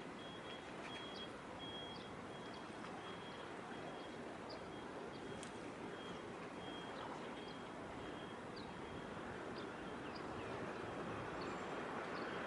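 Distant harbour ambience: a steady noisy rumble that swells slightly near the end. Over it come a faint high tone beeping on and off in short dashes and scattered small high chirps.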